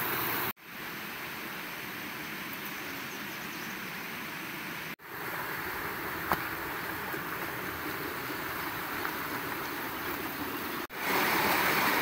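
Steady rushing of a small mountain creek. It grows louder about eleven seconds in, when the water cascading over the rocks is close. The sound drops out for an instant three times.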